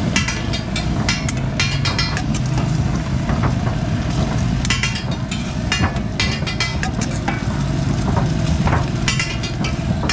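Metal spatula scraping and clattering on a large flat griddle in short bursts, with eggs and shami patties frying on it. A steady low rumble runs underneath.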